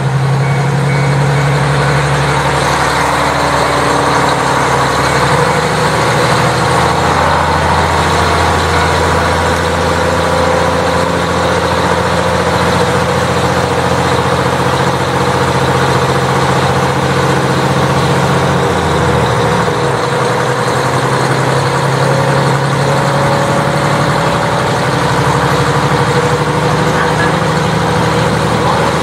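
KiHa 40 diesel railcar running, its diesel engine giving a steady low hum with a faint whine above it; the engine note drops about two-thirds of the way through.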